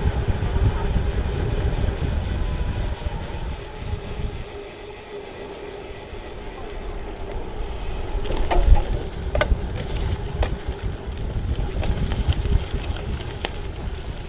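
Wind rushing over the microphone of a bicycle-mounted action camera while riding, with a low rumble of tyres on the road. Several sharp clicks or knocks come in the second half.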